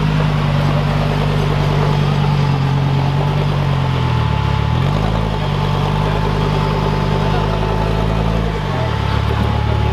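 Off-road competition vehicle's engine running steadily, its revs dipping and recovering about four seconds in and dropping again near the end.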